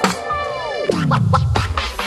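Background electronic music: a sharp hit, then a tone sliding steadily down in pitch for about a second and a half, with a few quick sharp beats in the second half.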